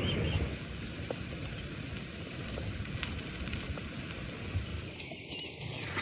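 Food frying in a pan, sizzling steadily with faint scattered crackles.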